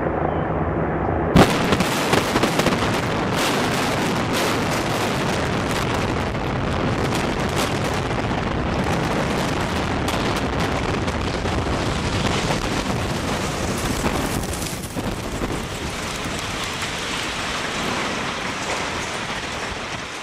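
Explosive implosion of the reinforced-concrete Kingdome heard close up: a low rumble, then a sudden loud blast about a second and a half in. After it comes a long crackling rush of noise as the dust and debris cloud blows over, with grit pattering on the microphone, easing a little near the end.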